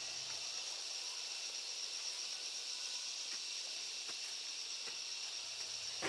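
Steady high-pitched chorus of insects, with a few faint clicks and rustles on top.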